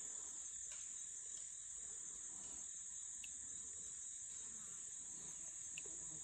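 Steady, high-pitched chorus of insects, cricket-like in character, trilling without a break.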